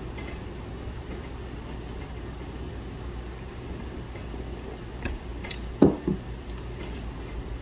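A steady low engine-like rumble, like a vehicle idling. A few sharp knocks and cracks come between about five and six seconds in, the loudest just before six seconds.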